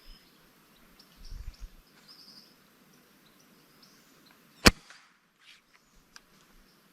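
A single sharp shot from a 4.5 mm (.177) air rifle, about two-thirds of the way in.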